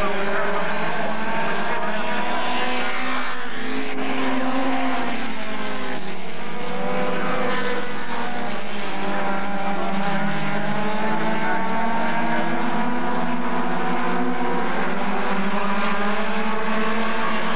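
Pack of super stock dirt-track race cars running at speed together, several engines overlapping, their pitch rising and falling as the cars lift and accelerate through the turns.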